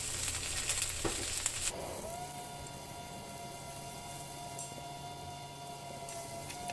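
Shredded cabbage sizzling in oil in a frying pan as it is stir-fried. Just under two seconds in, the sizzle drops away abruptly, and a steady high tone with a quieter hiss carries on to the end.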